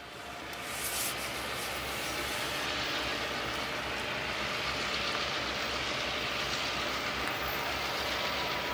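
Diesel-electric freight locomotives running slowly, with a steady low engine rumble and the noise of wheels rolling on the track; the sound fades in over the first second. A faint steady squeal joins near the end.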